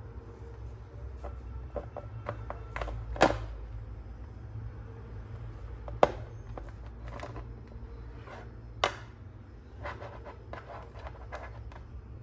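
Knife cutting through a baked bundt cake on a plate: soft scraping strokes with a few sharp clicks, the three loudest spread about three seconds apart, over a steady low hum.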